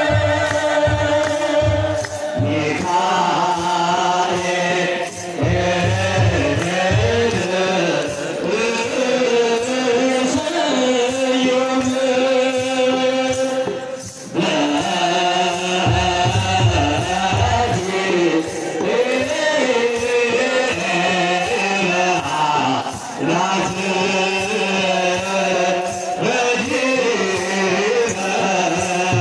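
A large group of men chanting an Ethiopian Orthodox hymn together, with long, wavering held notes. Kebero drums beat under the chant in some passages, near the start, around a third of the way in and just past halfway.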